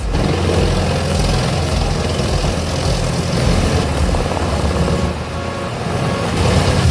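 A large vehicle engine running steadily, with a deep, even rumble.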